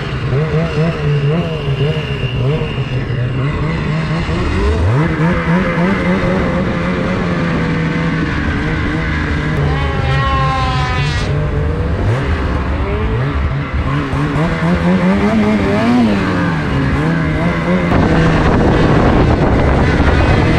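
Snowmobile engines running and revving as the sleds ride off, the engine pitch climbing about five seconds in and rising and falling again later as the throttle is worked.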